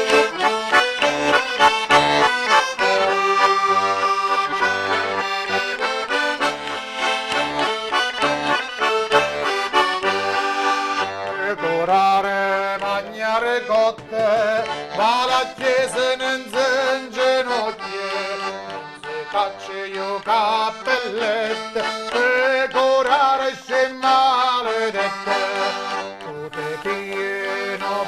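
Diatonic button accordion (organetto) playing a traditional folk tune, melody over bass notes. About eleven seconds in, a man's voice starts singing over it.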